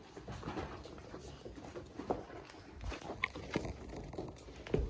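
Weimaraner puppies about a month old scampering around: an irregular patter of paws, scrabbling on bedsheets and light knocks, with a short high squeak about three seconds in.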